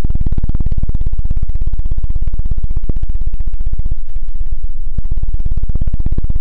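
A hand rapidly patting over the ear of a binaural dummy-ear microphone, the 'helicopter' ASMR trigger: an even, fast run of deep thumps, lighter for about a second near the middle.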